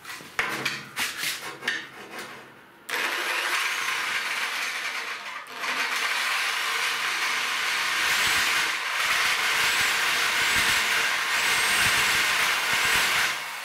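Corded reciprocating saw cutting through a 5 mm steel plate. A few short starts come in the first three seconds, then the saw runs in one steady cut until just before the end.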